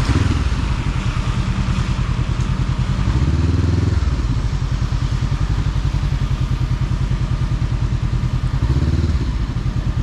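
Motorcycle engine running under way with a steady low pulsing, its revs rising briefly twice, about three seconds in and near the end, over a hiss of road and wind noise.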